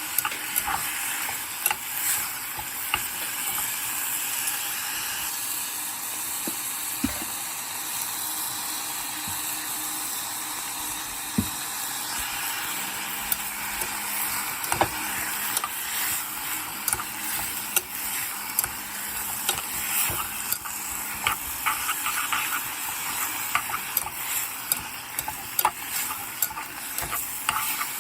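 Pork and garlic sizzling steadily in hot oil in a pan, with frequent sharp clicks and scrapes of a utensil stirring it.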